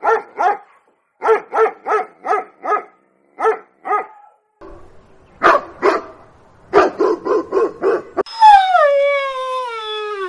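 A dog barking in quick runs of several barks, about three a second, with short pauses between the runs. Near the end comes one long howl that slides steadily down in pitch.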